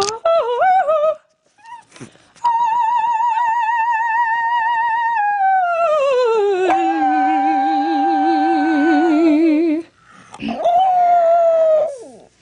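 A Japanese Chin howling along to a person's operatic singing: long held notes with a wide wavering vibrato, one sliding down in pitch about six seconds in, overlap with the dog's smoother howl. Near the end a short howl slides down and stops.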